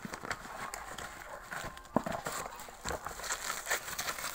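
A cardboard box and a bubble-wrapped plastic toy gumball machine being handled: irregular knocks, clicks and crinkling, with one sharp click about two seconds in.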